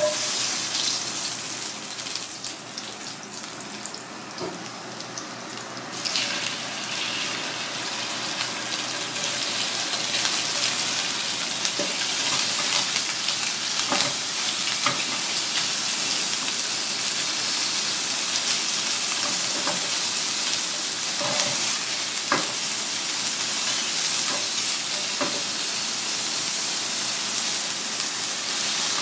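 Garlic, pork, onion and cuttlefish pieces sizzling in hot oil in a frying pan, stirred with wooden chopsticks that give a few light taps. The sizzle starts sharply and grows louder about six seconds in as more food goes into the pan, then stays steady.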